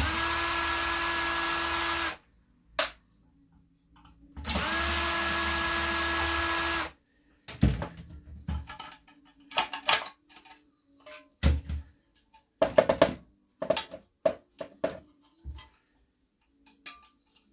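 Cordless drill-driver run twice in short bursts of about two seconds each, its motor whine winding up at the start, backing screws out of a plastic heater fan housing. After the second run come scattered clicks and knocks of the plastic parts and screws being handled.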